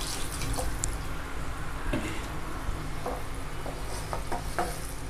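Water just poured into a hot kadai of sautéed vegetables, sizzling steadily, while a wooden spatula stirs through it and knocks lightly against the pan a few times.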